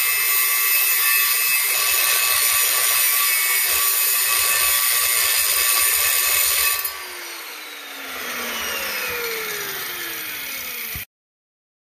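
Angle grinder cutting into a steel yard-tractor wheel rim with a steady, high-pitched grind. About seven seconds in it comes off the metal and the motor winds down with a falling whine, then the sound cuts off suddenly.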